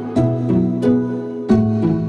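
Background music: a plucked melody with a new note about every third of a second, over held lower notes.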